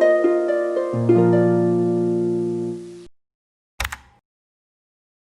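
Background music: plucked, harp-like notes over a held bass chord, fading out about three seconds in. A short sharp burst of noise follows a little later.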